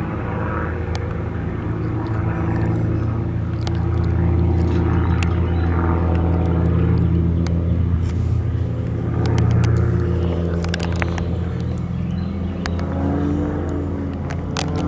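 Extra aerobatic airplane's piston engine and propeller droning steadily, its pitch shifting slightly as it flies its manoeuvres, with a few sharp clicks in the middle.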